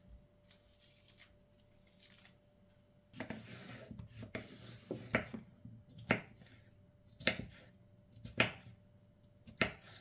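Kitchen knife slicing cucumber on a wooden cutting board. After a few seconds of handling, sharp single chops come at about one a second.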